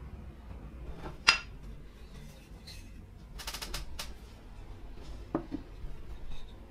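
A metal varnish tin lid is set down on a wooden workbench with one sharp, briefly ringing clink about a second in. Lighter metallic clicks and rattles follow a couple of seconds later, and a dull knock comes near the end as the tin and a wooden hand-plane body are handled.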